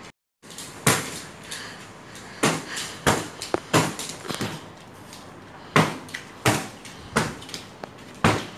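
Kicks landing on a hand-held padded kicking shield: a string of sharp smacks, about a dozen, coming quicker than one a second in the second half.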